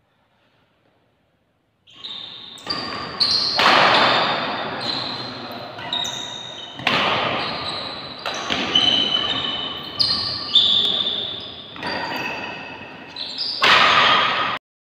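Badminton rally: sharp racket hits on the shuttlecock, about one a second, each ringing on in a large hall's echo. Silent for the first two seconds, and the sound cuts off shortly before the end.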